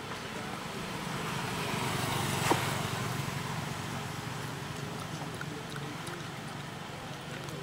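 A motor vehicle passing by: its engine and road noise swell to a peak about two and a half seconds in, then slowly fade. A single sharp click sounds at the loudest point.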